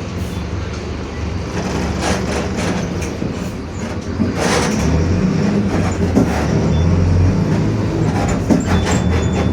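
Mercedes-Benz OF-1721 city bus under way: diesel engine running and getting louder about halfway through as it pulls, with the differential growling, a sign of a worn differential. A short hiss comes about halfway through, and body rattles and clicks are scattered throughout.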